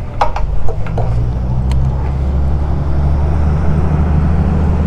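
Motorcycle engine running steadily at low revs, with a few sharp clicks in the first second or two.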